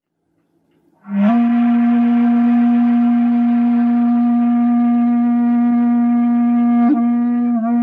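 Shakuhachi, the Japanese end-blown bamboo flute, playing Fuke-school honkyoku. It enters about a second in with a slight upward scoop into one long, steady low note with breath noise. Near the end comes a brief flick in pitch and a small dip.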